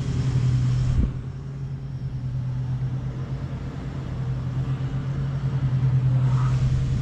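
Quadcopter's motors and propellers humming steadily in flight, with a low uneven rumble beneath. The sound drops suddenly about a second in and swells again near the end.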